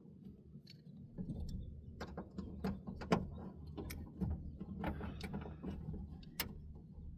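Irregular small clicks and knocks of hands working the window motor's wiring pigtail and plastic parts inside a car door, over a low steady hum. The sharpest click comes about three seconds in.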